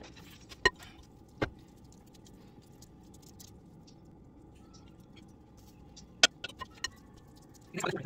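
Kitchen handling noise as crab cake mixture is shaped by hand over a glass mixing bowl: a few sharp clicks and knocks of a utensil against the bowl, two in the first second and a half and a quick run of three about six seconds in. A short clatter near the end as a patty is lifted on a spatula. A faint steady hum underneath.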